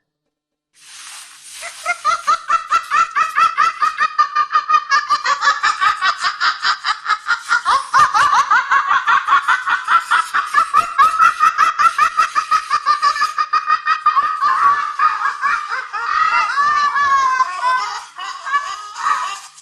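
A long, high-pitched evil cackle for a horror scarecrow: after a breathy start it breaks into rapid, even laugh pulses, then ends in wavering rises and falls of pitch.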